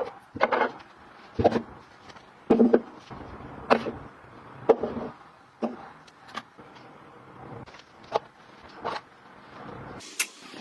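Handling noise from household items being picked up and set down: irregular knocks and clicks about once a second, some with a short rub or scrape.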